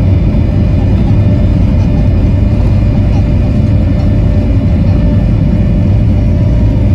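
Airliner cabin noise during the takeoff roll: the jet engines running at high power, a loud steady low rumble with a steady whine above it as the plane speeds down the runway.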